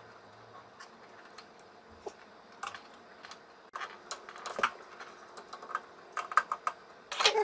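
Small plastic-and-metal clicks and wire rustling as crimped spade connectors are pushed onto the terminals of an espresso machine's control board. The clicks are scattered, with a denser run of them near the end.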